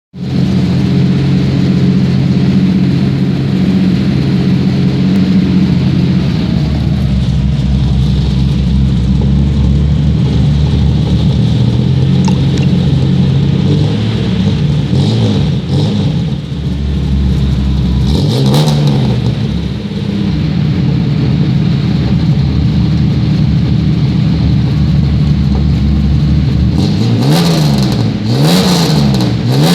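Chevrolet Opala 1974 straight-six engine, fitted with 6-into-2 headers and a straight-through exhaust, idling with a deep rumble. The throttle is blipped a few times about halfway through, and near the end it is revved up and down in a quick run of rises and falls.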